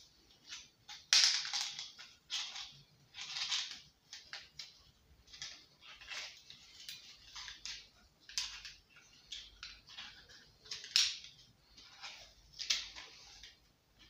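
Recoil starter of a Subaru lawnmower engine being turned by hand to wind its spring: a run of irregular scraping and rasping noises as the pulley rubs against its housing, the loudest about a second in and again about eleven seconds in.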